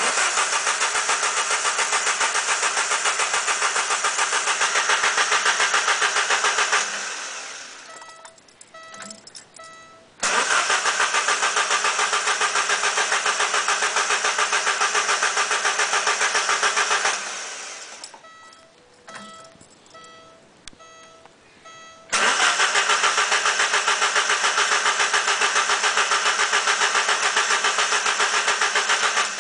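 1989 Alfa Romeo Spider's twin-cam four-cylinder engine cranked on the starter three times, about seven seconds each, with an even pulsing rhythm and never catching. This is a no-start: there is spark to all cylinders, and the owner suspects a fuel problem such as the fuel pump or its relay fuse. Short, evenly spaced beeps sound in the pauses between the cranks.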